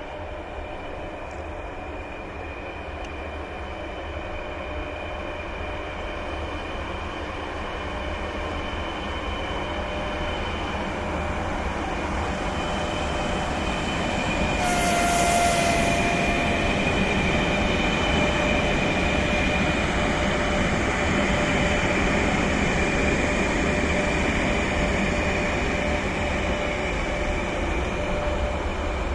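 3ES5K Ermak three-section electric freight locomotive slowly pulling a freight train: a steady whine from its traction equipment and fans over the rumble of wheels and wagons, growing louder. A brief hiss and squeal come about halfway.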